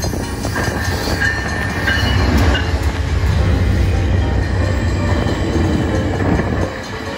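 VIA Rail diesel passenger train passing close by at a level crossing: the locomotive's engine drones low, then the stainless-steel coaches roll past. Brief high-pitched tones sound in the first few seconds, and the low drone falls off near the end as the locomotive moves away.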